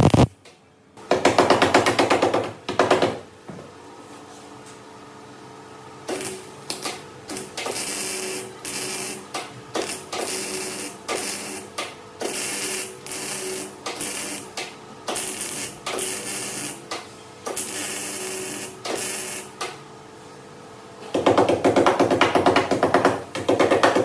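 MIG welder crackling as seams on a car's steel A-pillar are welded: a longer run about a second in, then a string of short separate bursts of stitch or tack welding, and another long, loud run near the end.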